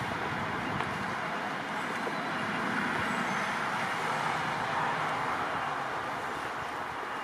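Steady rush of motorway traffic.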